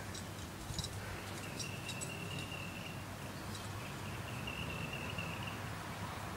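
An insect trilling twice on one high, steady pitch, each trill lasting a second or so, over a low steady background hum, with a few faint ticks in the first couple of seconds.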